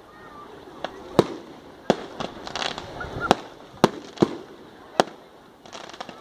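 Aerial fireworks bursting: about half a dozen sharp bangs at irregular intervals, with a stretch of crackling about halfway through.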